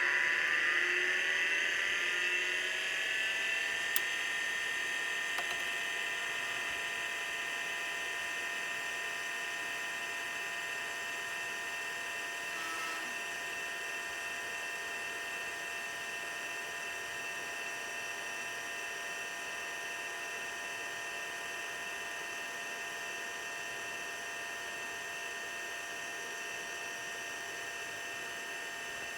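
Priam ID40-AT-D2 full-height MFM hard drive spinning up on its first start after sitting unused for over a year, when it is loudest. A whine of several tones rises in pitch like an air raid siren over the first few seconds, then holds steady at full speed and slowly grows quieter. There is a single click about four seconds in.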